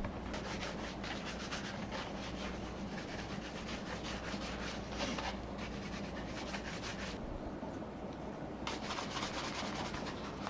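Rapid back-and-forth rubbing strokes on a shoe, about five a second, pausing for a moment about seven seconds in and then starting again.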